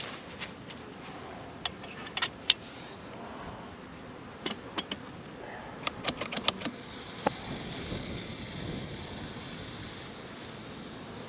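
Sharp plastic and metal clicks and knocks as an Instantvap Compact oxalic acid vaporizer is handled and set into a hive entrance. About two-thirds of the way in, a steady high hiss starts and continues: the vaporizer jetting oxalic acid vapour into the hive.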